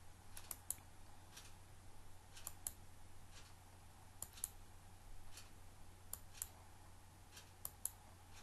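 Computer mouse clicking: five quick double clicks, spaced about two seconds apart, over a faint steady low hum.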